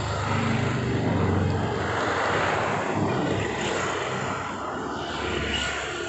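An engine running steadily: a low hum under a broad rushing noise, loudest in the first couple of seconds and easing slightly after.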